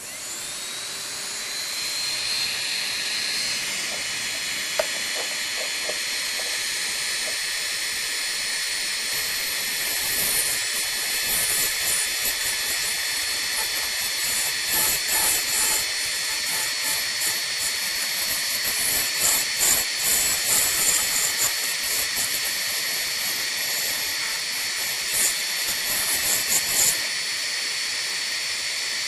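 A hand-held rotary tool spinning an Orbitool cross-hole deburring cutter: a steady high whine with hiss that starts and spins up right at the beginning. From about a third of the way in come irregular high scraping bursts as the cutter works the edge of the cross hole.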